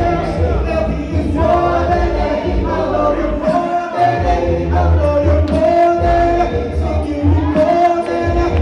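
A cappella gospel worship singing: a male lead voice with women's voices in harmony, sung into microphones, with held notes over a low sung bass line.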